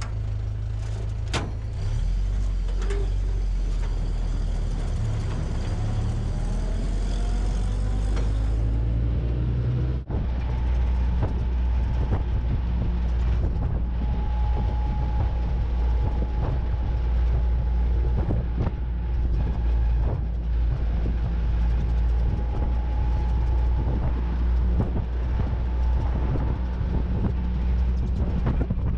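Open 1955 Willys Jeep CJ5 being driven, its engine running with road and wind noise. The engine note rises over the first several seconds as the Jeep pulls away and accelerates. After a sudden short break about ten seconds in, it runs steadily at cruising speed.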